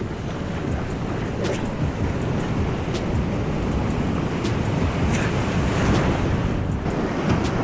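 Atlantic Ocean surf washing on a beach, with wind rumbling on the microphone.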